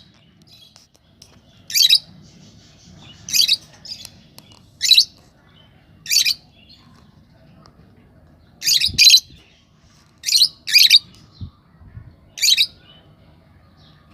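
Domestic canaries giving loud, short, high-pitched chirps, one every second or two, some in quick pairs.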